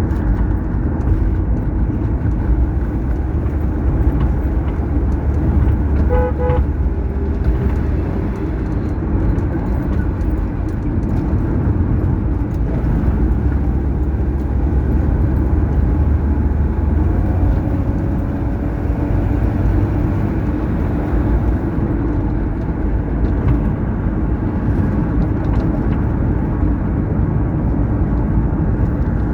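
Steady low road and engine noise of a vehicle driving on a highway. About six seconds in, a horn gives two short toots.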